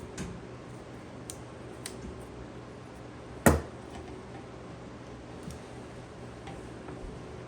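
Small clicks and taps of hand tools working on a box fan's motor windings, with one sharp, much louder click about three and a half seconds in.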